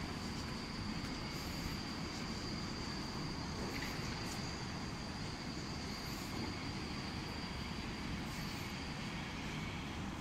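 Steady outdoor background noise: a low rumble with a thin, steady high-pitched whine over it.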